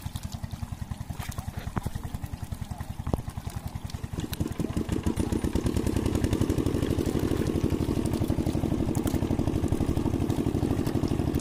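A small engine running with a rapid, even putter, growing louder about four seconds in.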